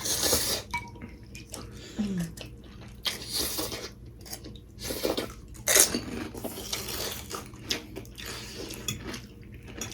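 Close-up eating at a table: cutlery clicking against dishes, mixed with short noisy bursts of chewing and slurping, in scattered separate strokes.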